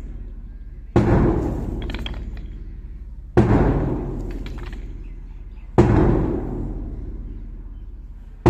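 Bass drum struck with a single slow beat about every two and a half seconds, three times and again at the very end, each deep beat ringing and fading out before the next. The beats keep time for a group drill exercise in place of spoken counts.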